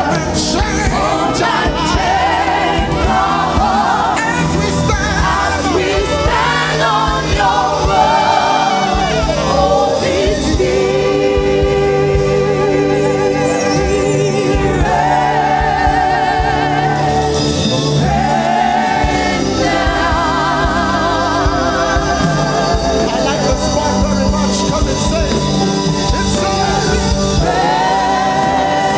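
Gospel choir singing a slow worship song, holding long notes with vibrato over steady instrumental backing.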